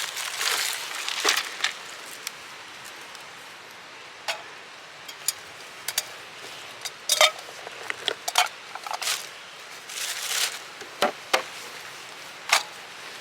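Irregular clicks, clinks and short scrapes of objects being handled, over a steady hiss.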